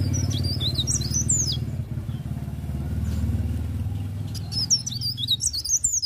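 Caged cikrak daun (leaf warbler) singing two rapid bursts of high, quickly rising and falling warbling notes, one at the start and one about four and a half seconds in. Both sound over a steady low engine rumble.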